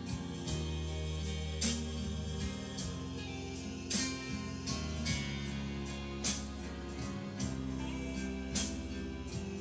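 Instrumental background music: held low notes with a sharp accent about every two seconds.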